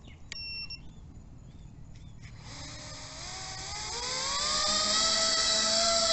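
A short electronic beep, then the bi-copter's two brushless motors and propellers spin up: a whine of several tones rising in pitch that levels off into a steady high whine.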